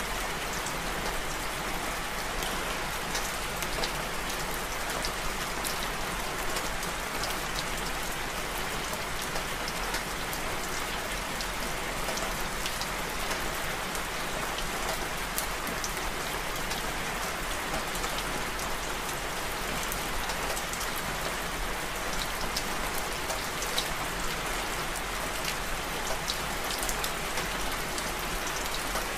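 Steady rain falling: an even hiss with many small, sharp drop ticks scattered through it.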